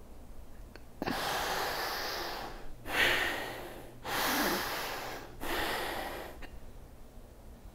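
A woman breathing forcefully in and out: four long, noisy breaths, the loudest about three seconds in. This is the breathing of stomach vacuums, a full exhale to hollow out the abdomen.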